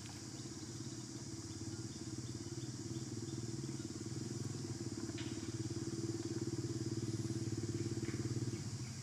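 An unseen engine running with a low, rapid pulse. It grows steadily louder, then drops away shortly before the end.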